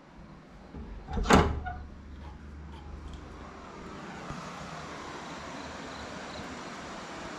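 A single loud thump about a second in, then a steady hiss of background noise.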